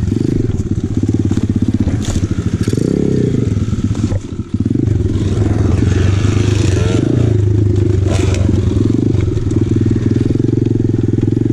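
Apollo RFZ 125cc pit bike's single-cylinder four-stroke engine running hard under load, the throttle rolling off and on over rough ground and briefly dropping off about four seconds in. Tyres crunch and clatter over dry branches and logging slash, with a few sharp knocks.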